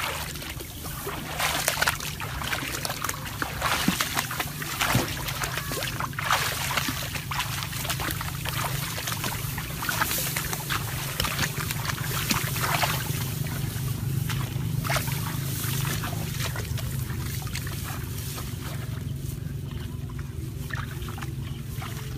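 Water splashing and sloshing in shallow water, with many short irregular splashes over a steady low rumble. The splashes thin out over the last few seconds.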